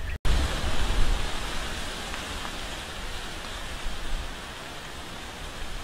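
Steady outdoor wind noise: a hiss with an uneven low rumble of wind buffeting the microphone. It cuts out completely for an instant just after the start and is loudest over the next second or so.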